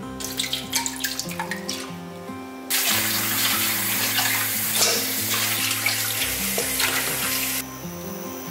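Kitchen tap running onto broccoli in a stainless-steel mesh colander in the sink: a steady rush of water that starts about three seconds in and cuts off suddenly near the end. Before it, small scattered splashes of water in a bowl. Soft background music plays underneath.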